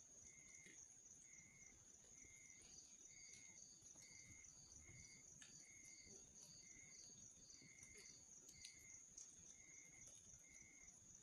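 Faint night insects: one keeps up a continuous high trill while another repeats a short chirp about three times every two seconds. A few faint crackles from a campfire come through.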